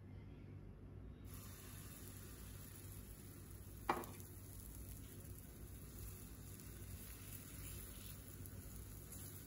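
Hot oil sizzling in a nonstick frying pan, a steady high hiss from about a second in. Just before four seconds the bottle-gourd chilla batter hits the hot oil with one sudden loud sizzle, after which it keeps sizzling steadily as the batter cooks.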